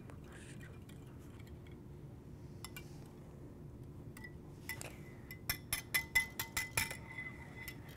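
Wire whisk beating eggs in a glass bowl, faint at first, then a quick run of clinks of the metal whisk against the glass in the second half, with the bowl ringing briefly after them.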